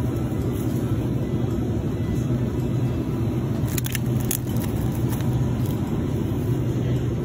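Steady low hum of supermarket background noise beside an open refrigerated display case. A brief crackle of plastic film about four seconds in, as a hand touches a wrapped tray of chicken.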